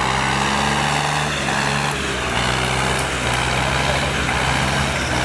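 Two diesel tractor engines, a Swaraj and a Sonalika, running hard under heavy load as they pull against each other in a tug-of-war, a loud steady drone.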